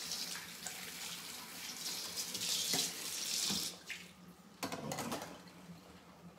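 Kitchen sink faucet running while paint is washed off hands, shutting off about four seconds in, followed by a few light knocks.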